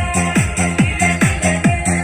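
Electronic dance music with a steady, fast kick-drum beat and sustained synth bass. It is played from a phone through a homemade AV502-style transistor amplifier into a loudspeaker, as a test of the amplifier.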